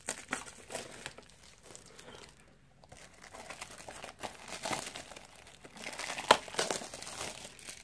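Clear plastic wrapping crinkling and crackling in the hands as a Funko Mystery Minis blind box is handled, in irregular bursts with one sharp, louder crackle about six seconds in.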